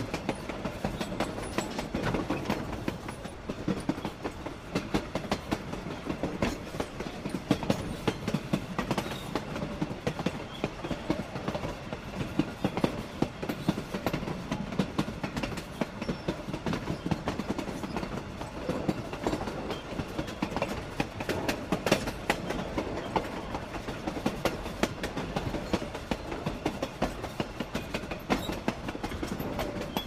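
A train travelling along the railroad: a steady rush of running noise with many sharp, irregular clicks and knocks from the wheels on the rails.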